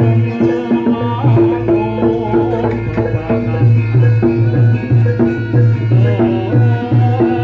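Loud Javanese gamelan music accompanying a barongan dance: kendang hand drums keeping a repeating beat over a low pulse and the struck notes of metal-keyed percussion, with a wavering melody line above.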